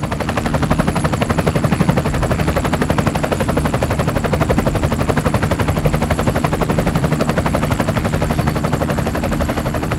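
Rapid automatic gunfire, a fast even rattle of shots, over a steady low engine drone.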